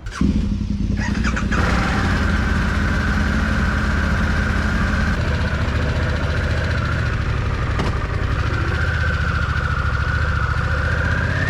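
A big V-twin adventure motorcycle engine starts up abruptly just after the start and settles into a steady idle, with a high whine above it that rises near the end.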